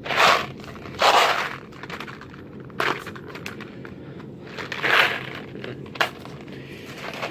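Red Hots cinnamon candies and their packaging being handled and crunched: a series of short crackling bursts, the loudest about a second in and about five seconds in, with a few sharp clicks between.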